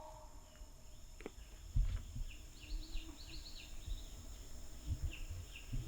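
A small bird chirping faintly in a quick series of short, falling notes, under low, uneven rumbling from wind or handling on the microphone.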